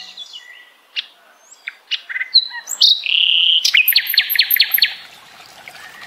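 Small songbird calling: a few short chirps, then a held note about three seconds in and a quick run of repeated notes.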